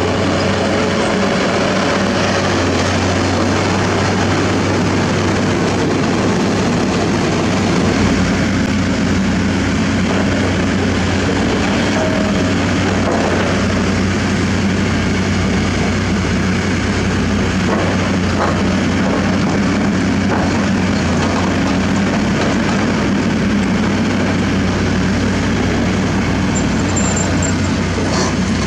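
Heavy diesel engines of a crawler rotary drilling rig and a Kobelco SK200 hydraulic excavator running steadily, a continuous low drone.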